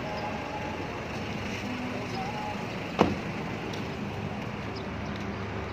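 Steady rumble of vehicle engines idling, with one sharp knock about three seconds in.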